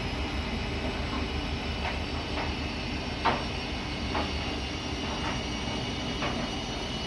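Siemens iQ300 front-loading washing machine running, a steady rumble of motor and turning drum with irregular light clicks and knocks about once a second, the loudest a little over three seconds in.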